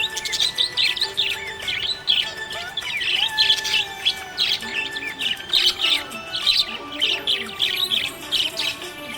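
Budgerigars chirping and warbling non-stop: many quick, overlapping high chirps, several birds at once.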